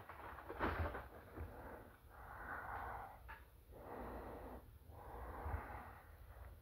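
A man breathing close to the microphone: about four slow, breathy swells in and out, each roughly a second long.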